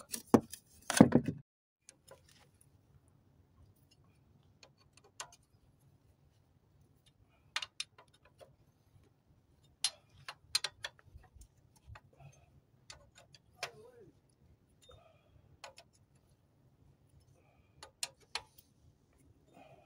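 Scattered light metallic clicks and taps from hand tools working on the engine, at irregular intervals over a faint low hum.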